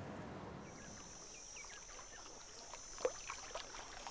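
Faint water ambience: scattered small drips and plinks, one a little louder about three seconds in, over a steady high thin whine that starts about half a second in.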